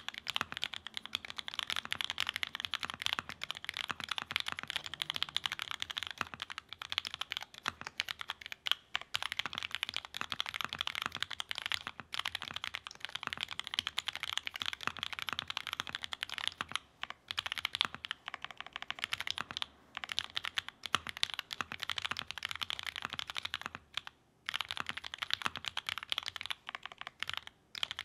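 Fast, continuous typing on a mechanical keyboard with JWK ALS linear switches (nylon housings, black POM stems, lubed) in a GEON F1-88 aluminium case with an FR-4 plate and PBT keycaps. Dense key clacks run on with a few brief pauses.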